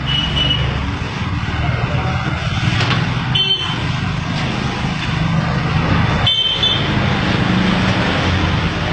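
Steady road traffic noise with engines running, and two short sharp sounds with a brief ringing tone about a third of the way in and again two-thirds in.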